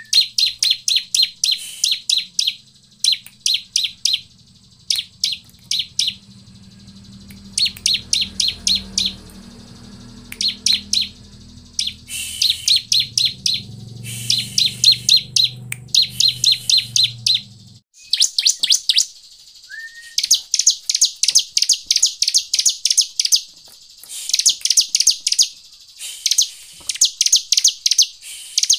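Bar-winged prinia (ciblek) song: rapid series of sharp, high-pitched chip notes in bursts of about a second with short gaps, turning into faster, buzzier trills in the later part. A low hum runs underneath until a little past halfway, where it stops abruptly.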